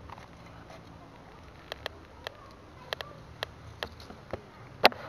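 About ten sharp clicks at uneven intervals, the loudest near the end, over a faint low hum.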